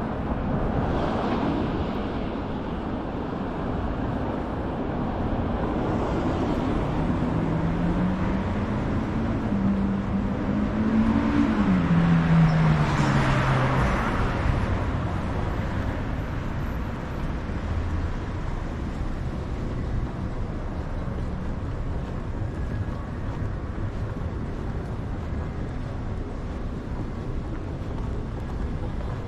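Busy city street ambience with steady traffic noise; a motor vehicle passes, its engine note rising and then falling, loudest about twelve seconds in.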